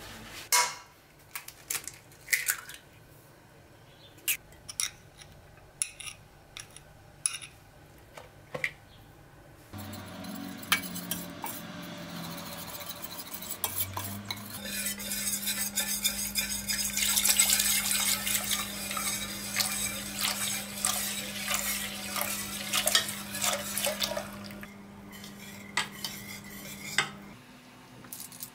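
Clinks and knocks of dishes and a tub being set down on a table, then a wire whisk beating an egg mixture in a stainless steel pot: fast, dense metallic rattling and scraping against the pot over a steady low hum.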